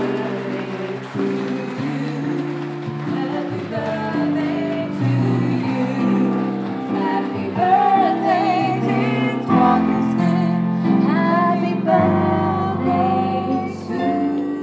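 Background music: a song with a singing voice over sustained instrumental chords.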